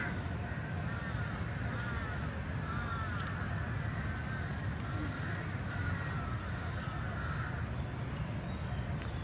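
Birds calling in a string of short, arching calls that stop near the end, over a steady low rumble.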